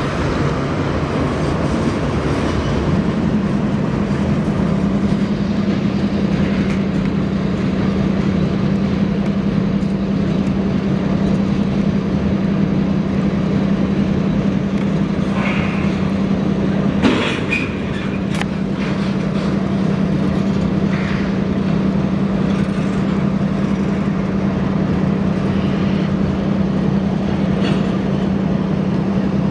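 A train rolling past, with a steady low drone that sets in a few seconds in and holds throughout. A single sharp knock comes a little past halfway.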